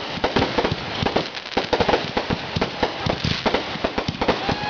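Consumer aerial fireworks going off overhead in a rapid, unbroken string of bangs and crackles, the crackling stars bursting close on one another.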